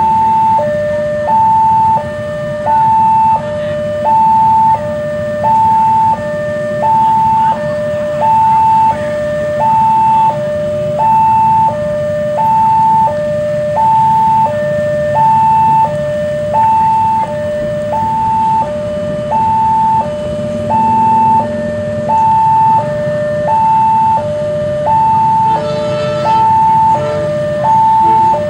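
Electronic railway level-crossing warning alarm sounding a steady two-tone high–low pattern, about one cycle a second, warning of an approaching train. A steady low rumble runs underneath, and a short train horn sounds near the end as the locomotive approaches.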